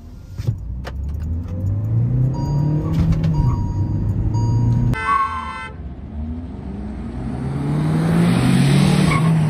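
Hyundai Verna 1.5 car accelerating at full throttle, heard from inside the cabin: the engine note climbs, drops at a gear change about five seconds in, then climbs again while tyre and wind noise build.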